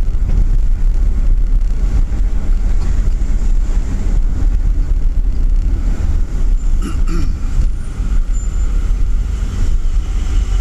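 Steady low road and engine rumble inside a moving car's cabin, with a brief higher sound about seven seconds in.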